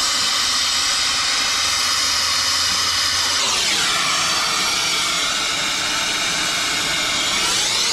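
Brazing torch flame hissing steadily as it heats the compressor's brazed line joints to unsweat them. The hiss drops lower in tone about halfway through and rises again near the end.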